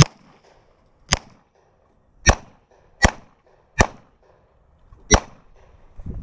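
Six pistol shots at an uneven pace, roughly a second apart, with a longer gap before the last one.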